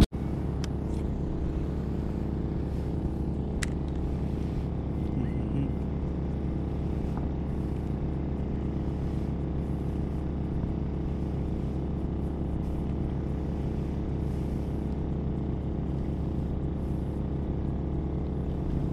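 Maxpeedingrods 3500-watt portable generator running steadily, a constant engine hum that does not change in pitch, with a faint tick a few seconds in.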